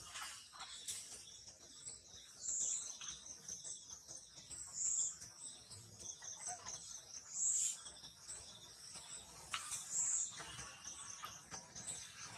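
Steady high-pitched insect chorus, with a louder chirping call recurring about every two to three seconds.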